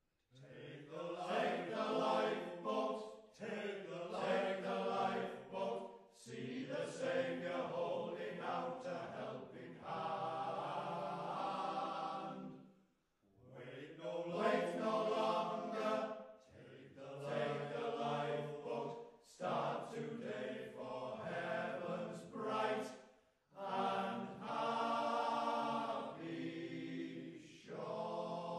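Fishermen's choir singing together in several voices, in sung phrases with brief breaks between them.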